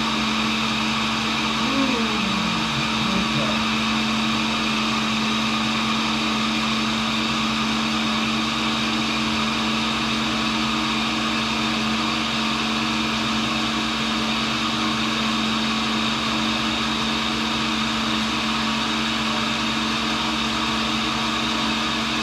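Cincinnati tool and cutter grinder running at steady speed with its 100-grit diamond cup wheel spinning: a constant motor hum with a high whine.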